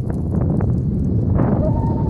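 Wind buffeting a head-mounted phone's microphone over the low rumble of a bicycle on the move, with a fast patter that fits a dog's paws trotting alongside. A faint thin whine comes in near the end.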